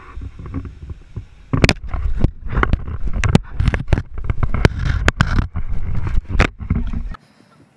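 A crocodilian's jaws gripping and chewing on a camera: teeth knock and scrape against the housing in a fast, irregular series of sharp clicks over a low rumble. It cuts off suddenly near the end.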